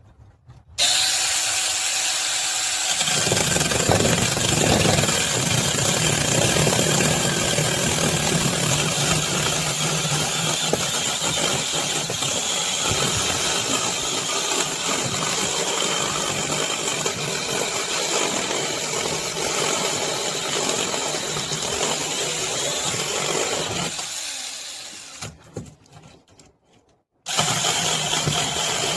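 Mini chainsaw starting abruptly and running, then cutting into a piece of firewood, the chain's sound deepening and thickening as it bites into the wood. It dies away near the end, stops for about a second, then starts up again.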